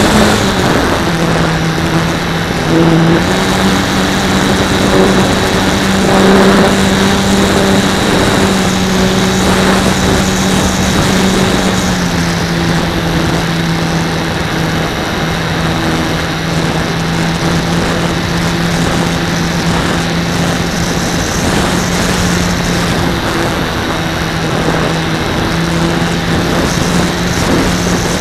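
Electric motor and propeller of a HobbyZone Super Cub S RC plane running in flight, heard up close from a camera mounted on the plane. The steady tone drops in pitch about a second in, rises again about three seconds in, and drops once more around twelve seconds in as the throttle is eased and opened.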